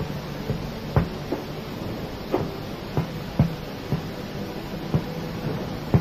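Chalk striking and scratching a blackboard as symbols are written: about seven short, irregular taps, over a low steady hum.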